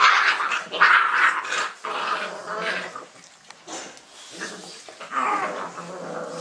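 Dogo Argentino puppies play-fighting, growling and yapping at each other in a run of short pitched cries, loudest in the first two seconds, with another burst about five seconds in.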